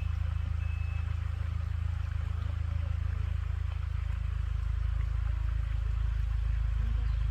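A vehicle engine running, a steady low rumble throughout.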